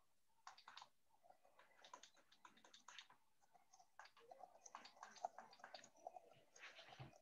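Faint, irregular clicking and tapping in a quiet room, with a soft low thump near the end.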